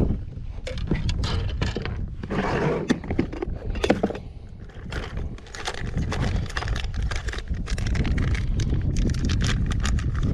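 Rummaging through fishing tackle for new bait: a run of plastic clicks, rattles and rustles, over low wind rumble on the microphone.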